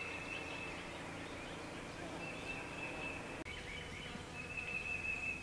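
Outdoor spring ambience: a high, steady trilling call repeats three times, each held about a second, with a few faint chirps around it.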